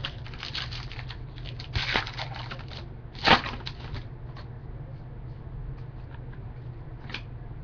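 Trading cards being handled and flipped through: dry rustling and light clicks, with a louder crackle a little over three seconds in.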